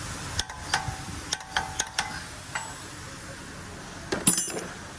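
Torque wrench working on brake hardware: a handful of sharp, irregularly spaced ratcheting clicks, then a short clatter of metal on metal with a brief ring about four seconds in.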